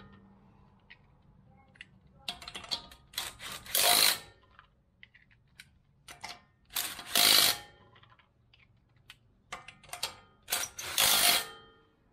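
Hand ratchet and socket clicking as wheel nuts are run up on a wheel, done up loosely ahead of final torquing with a torque wrench. Three quick runs of rapid ratchet clicks a few seconds apart, with small metallic ticks between.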